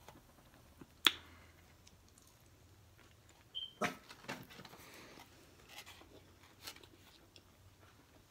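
Quiet eating sounds: a bite into a burger about four seconds in, followed by soft chewing. A single sharp click comes about a second in, and that click is the loudest sound.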